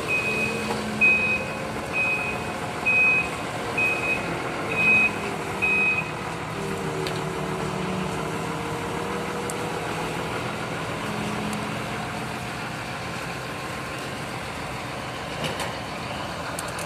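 A vehicle's reversing alarm beeping, a single high beep about once a second, stopping about six seconds in. A steady low hum runs underneath.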